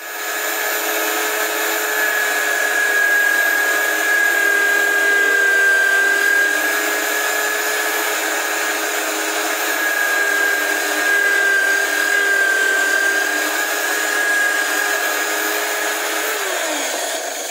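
Homemade drill press running steadily with a constant whine while boring small holes through a plywood block. Its pitch drops near the end as the motor slows.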